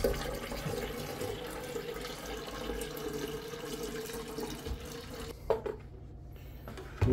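Tap water running into a stainless-steel-lined electric kettle with a steady tone under the splashing as it fills. The flow stops about five and a half seconds in, followed by a couple of knocks.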